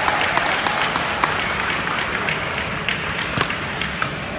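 Spectators clapping, thinning out over the first seconds, then a couple of sharp racket hits on a shuttlecock near the end as a badminton rally gets going.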